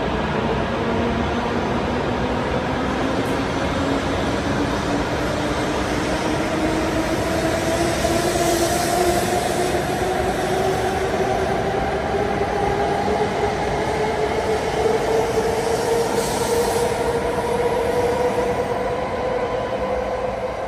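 E7/W7-series Hokuriku Shinkansen train pulling away from the platform, its traction motors giving a whine that rises steadily in pitch as it gathers speed, over the rumble of wheels on rail.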